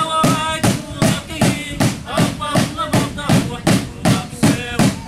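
Traditional dance music: a steady drumbeat of about three beats a second with voices singing over it.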